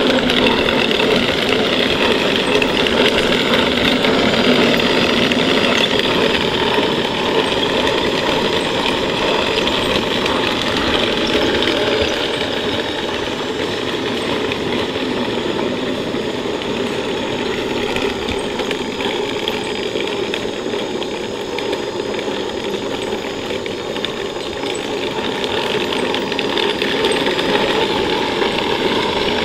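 Metal tracks of a 1/6-scale radio-controlled Armortek Tiger I tank clattering and rattling over asphalt, with its electric drive motors running, as the hull drives. The clatter fades somewhat as the tank moves off and grows louder again near the end as it comes back close.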